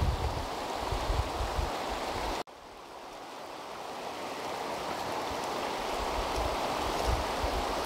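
Steady outdoor rushing noise with gusts of wind buffeting the microphone. It cuts out suddenly about two and a half seconds in, then swells back gradually.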